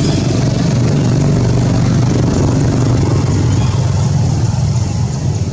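Steady low rumble of a motor vehicle engine running close by.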